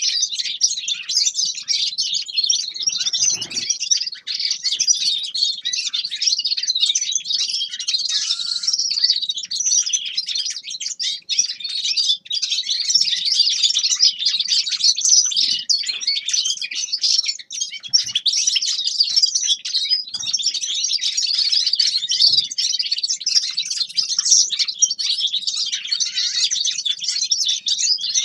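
Small finch singing a continuous, rapid twittering song with no pauses, joined by a few faint low knocks.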